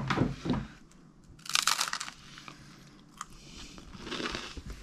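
A person bites into something crunchy, one loud crunch lasting about half a second, about one and a half seconds in, then chews quietly with a few faint clicks. The food is smoked herring cale pâté being tasted.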